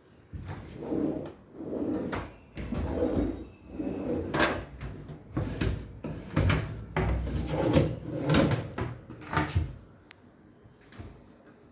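A run of knocks and thumps about a second apart over a low rumble, with several sharp clicks in the second half, then it stops.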